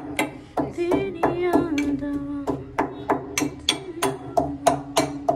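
A pestle pounding garlic, ginger and chillies into a paste in a small metal mortar cup. It strikes in a steady beat of about three to four knocks a second.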